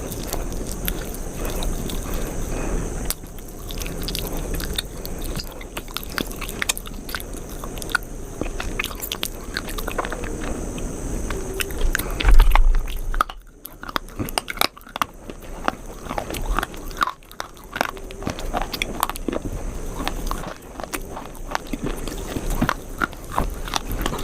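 Close-up biting and chewing of crunchy food: a steady stream of crisp crunches, with a loud low bump about halfway through.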